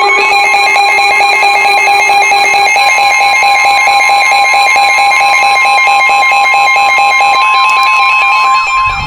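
Electronic emergency alert tone, the attention signal of an Emergency Alert System broadcast: loud steady tones with a fast regular pulse. The pitch shifts about a third of the way through, and the tones stop near the end.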